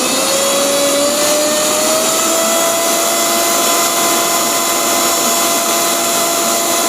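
Bajaj 1000-watt mixer grinder motor running at its third speed with no jar fitted. It is a loud, steady whine that climbs slightly in pitch over the first couple of seconds as the motor comes up to speed. It peaks at about 92 dB on the sound meter, fairly loud for a mixer.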